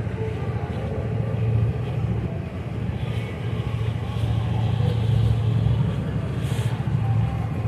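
Motorboat under way: a steady low rumble of its engine mixed with the rush of water past the hull.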